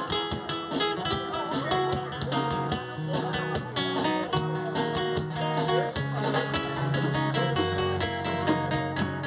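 Instrumental music: a strummed acoustic guitar over a steady bass line, without singing.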